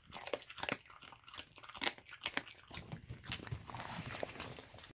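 A dog chewing a duck foot, crunching on it in quick, irregular bites.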